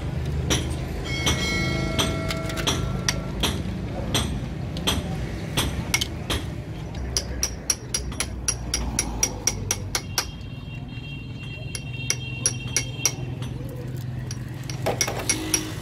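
Metal tools and gearbox parts clinking and tapping against each other during truck gearbox assembly: repeated sharp metallic taps, densest in the middle, with a few ringing notes.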